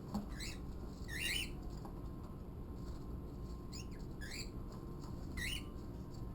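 Small pet bird chirping: about five short, sharp chirps, the loudest about a second in and two close together near the middle, over a low steady room hum.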